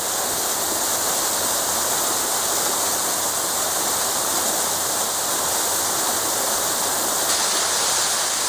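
Small waterfall pouring steadily, a dense hiss of falling water.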